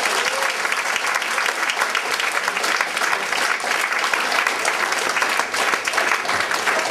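Audience applauding: many people clapping at once, a dense, steady clatter.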